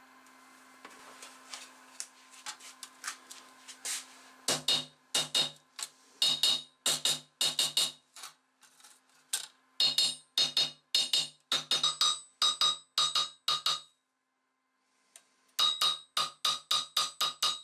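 Steel hammer striking a hand saw's steel blade laid on a steel bar, hammering the bent blade straight. About two blows a second, each with a ringing metallic clang: light taps at first, then harder blows from about four seconds in, with a short pause near the end.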